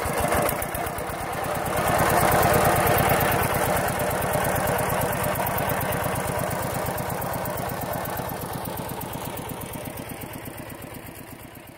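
Single-cylinder diesel engine of a two-wheel walk-behind farm tractor running with an even, rapid thudding beat as it pulls a trailer, growing louder about two seconds in, then fading out gradually near the end.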